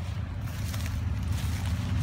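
Low, steady hum of a quadcopter drone's rotors flying back on its programmed return route, slowly growing louder as it approaches.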